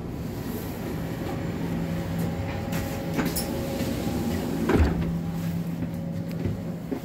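Steady hum inside a passenger train carriage, with a few clicks and one louder knock about five seconds in as the door between carriages is pushed open and passed through.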